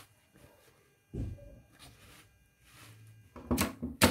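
Handling of the synthetic-leather bag panel with a single low thump about a second in. Near the end an industrial sewing machine starts stitching slowly, with a sharp clunk at each stitch as it tacks the strap in place.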